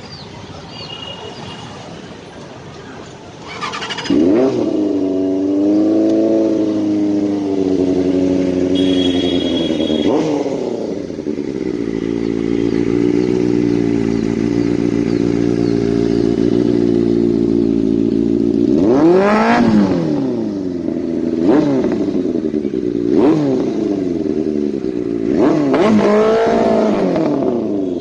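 Benelli TNT 600i's inline four-cylinder engine and exhaust: it comes up loudly about four seconds in, settles to a steady idle, then is blipped with the throttle four times, each rev rising and falling quickly.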